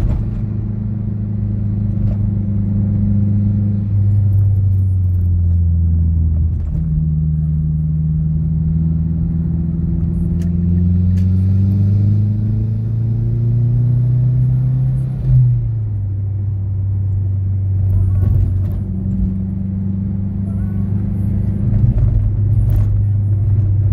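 Engine and road noise heard inside the cabin of a Mazda6 running a turbocharged 2.3-litre Mazdaspeed6 four-cylinder, breathing through a full 3-inch single-exit exhaust with an Apexi N1 muffler, while it drives along. The engine note climbs slowly for several seconds, then drops suddenly about two-thirds of the way through, as at an upshift.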